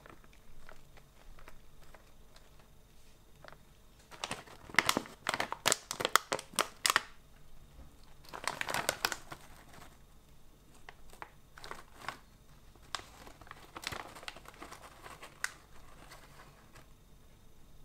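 Foil-lined plastic snack bag of Calbee shrimp crackers crinkling in three bursts as it is handled and pulled open, the loudest and sharpest about four to seven seconds in, then softer rustling as a hand reaches inside.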